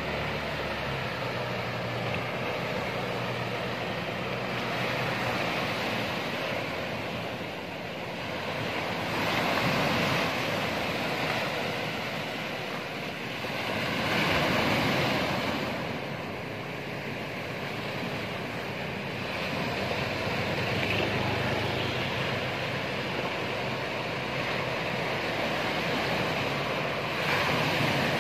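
Surf washing onto the beach, swelling into louder breaking waves several times, with wind on the microphone. The low hum of a fishing boat's engine runs faintly underneath.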